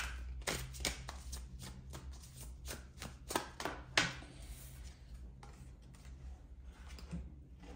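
Tarot cards shuffled by hand: a quick, irregular run of sharp card slaps and flicks that thins out about five seconds in, as one card is drawn from the deck.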